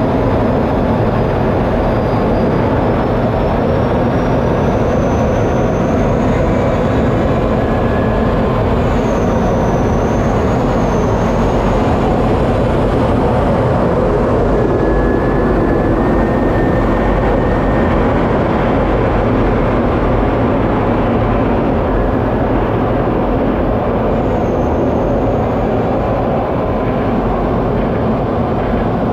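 Steady, loud rush of a KAI T-50B jet's F404 turbofan engine and airflow, heard from inside the cockpit, with a faint high whine wavering now and then.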